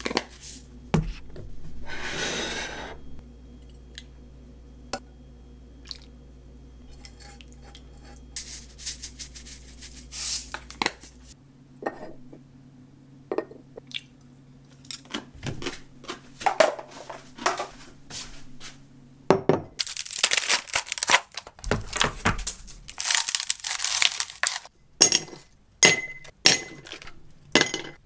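Kitchen handling sounds: plates and utensils clicking and knocking as food is served, then a plastic ice tray worked and ice cubes dropping into a tall glass, clinking sharply near the end.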